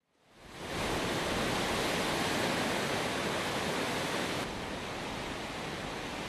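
Hukou Waterfall on the Yellow River, its rim hung with ice, with water pouring into the gorge as a steady, dense rush. The sound fades in over the first second and drops a little and dulls about four and a half seconds in.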